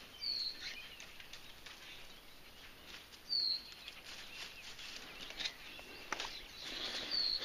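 A bird gives three short, high chirps a few seconds apart, with brief rustling near the end.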